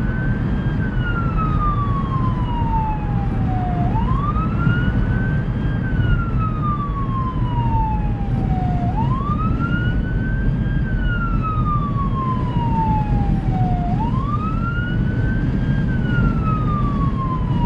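Fire department vehicle's siren on wail, rising quickly and then falling slowly about every five seconds, over steady engine and road noise.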